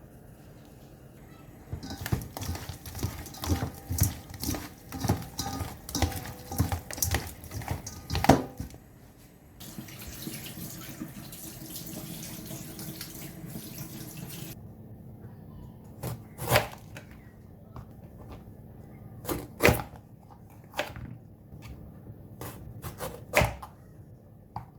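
Kitchen sink tap running for about five seconds near the middle, switched on and off abruptly. Before it comes a quick run of knocks and clatter, and after it a few single loud knocks.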